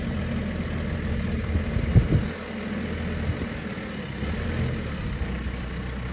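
Vehicle engine running steadily, with a couple of knocks about two seconds in.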